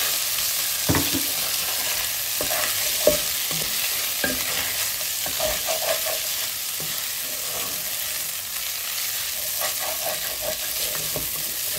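Shredded chicken frying with garlic-ginger paste and green chillies in oil, a steady sizzle, while a wooden spatula stirs and scrapes it around the pan, with scattered knocks of the spatula against the pan, the sharpest about three seconds in.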